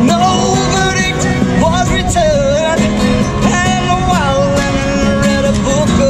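A singer performing live with guitar accompaniment, holding long, wavering sung notes over the steady guitar.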